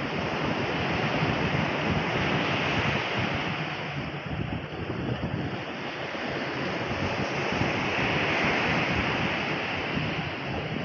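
Baltic Sea surf washing onto a sandy beach, a steady rush, with wind buffeting the microphone.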